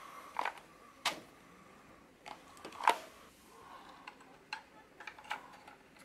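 Scattered, irregular sharp clicks and taps from hands handling a Keychron K4 mechanical keyboard, about nine in all, the loudest about a second and about three seconds in.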